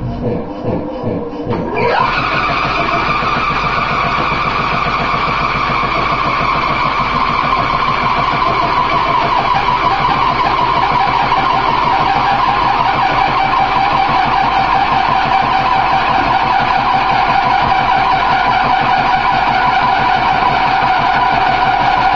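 A machine's motor spins up with a rising whine about two seconds in. It then runs steadily, its pitch slowly falling, over a fast low pulsing.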